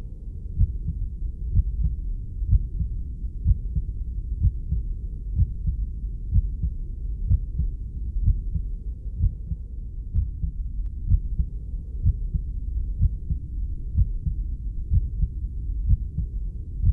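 Heartbeat sounds: steady, regular low thumps a little under a second apart, muffled, over a continuous low rumble.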